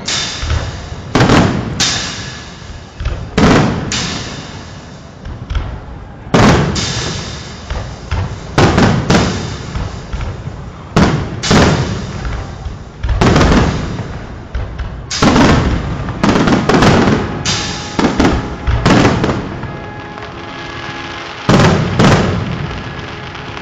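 Fireworks display: aerial shells bursting one after another, with sharp bangs every second or two, each trailing off. Near the end a steady low pitched tone joins in beneath the bangs.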